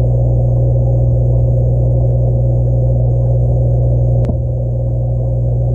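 Steady, muffled low hum of aquarium equipment picked up by a camera under the water, with a single sharp click about four seconds in.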